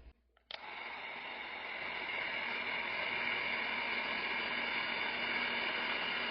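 Electric heat gun switched on about half a second in and running steadily, a fan whine with a rushing hiss of air, shrinking heat-shrink tubing over soldered wires.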